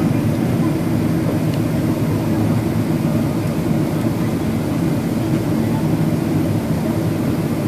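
Steady cabin drone of a Boeing 777-300ER in flight, its GE90-115B jet engines heard from inside the economy cabin as an even, deep rumble.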